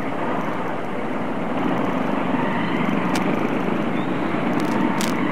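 Motorcycle engine running at low speed while creeping through a traffic jam, a steady hum under steady road and wind noise on the bike-mounted microphone. Two brief clicks come about three and five seconds in.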